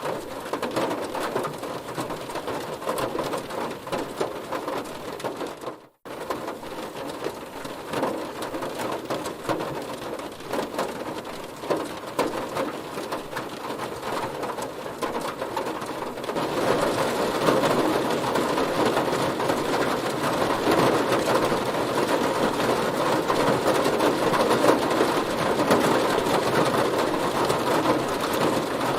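Heavy rain pelting a car's body in a steady dense patter. The sound cuts out for a split second about six seconds in, then grows louder and denser from just past halfway.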